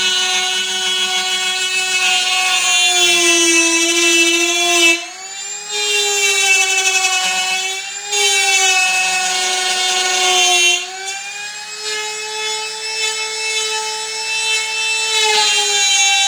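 Power tool cutting a circular hole in a wooden speaker panel: a steady motor whine whose pitch sags under load and picks up again, with brief dips about 5, 8 and 11 seconds in.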